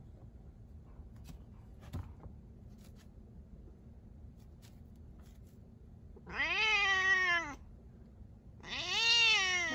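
Domestic cat meowing twice, two long drawn-out meows about a second apart, each rising and then falling in pitch. The first comes a little past the middle, and the second near the end.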